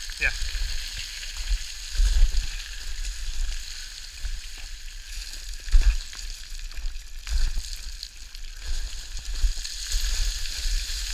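Boots crunching and sliding down loose scree: a steady gritty hiss, with a few sharper clacks of stones, the loudest a little before halfway through. Wind buffets the microphone in low, uneven rumbles.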